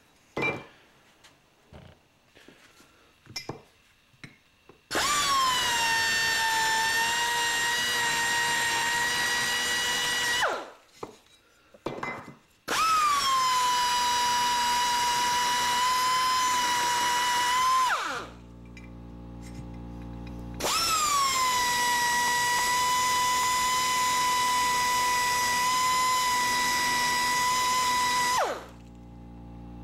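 High-speed rotary tool with a round bit grinding the LS1 oil pump housing, smoothing off sharp edges that cause oil turbulence. It runs three times for several seconds each, the last the longest. Each run starts with a brief rise in pitch, settles into a steady high whine with a grinding hiss, and winds down at the end. A few light handling clicks come before the first run.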